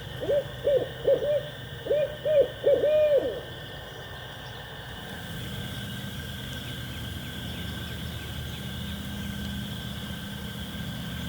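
Barred-owl hooting: a rhythmic series of about eight deep hoots in the 'who cooks for you, who cooks for you-all' pattern, the last notes drawn out, ending about three and a half seconds in.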